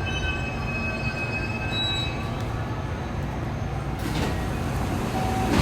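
JR West 207 series commuter train, heard from inside the car, slowing to a stop. High steady tones die away about two seconds in, leaving a low rumble, and a hiss starts about four seconds in.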